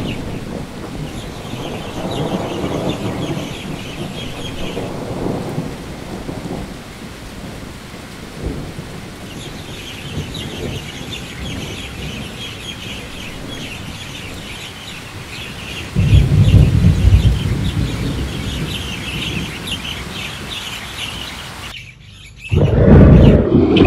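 Storm ambience: birds chirping over a steady rain-like noise, with a loud rumble of thunder starting about two-thirds of the way through and a second loud low rumble near the end.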